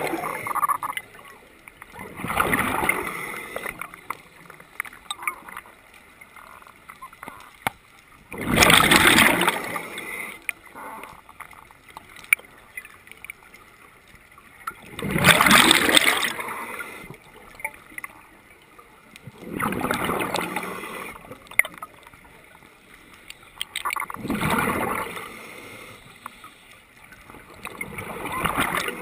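Scuba regulator exhaust underwater: a diver's exhaled bubbles rush out six times, one breath every four to six seconds, each lasting a second or two, with faint scattered clicks between.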